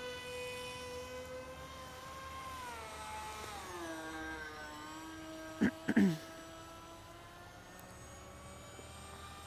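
Brushless electric motor and APC 6x4 pusher propeller of a Bixler model plane whining, its pitch falling as the throttle is eased back about three seconds in. A few short, loud bursts come just before six seconds in.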